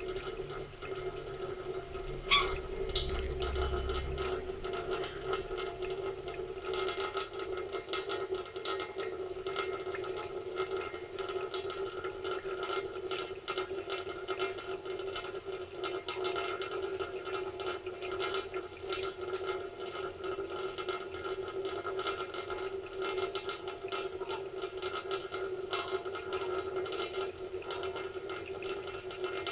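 Thin stream of tap water running into a stainless-steel sink basin, with many small irregular ticks and splashes over a steady hum.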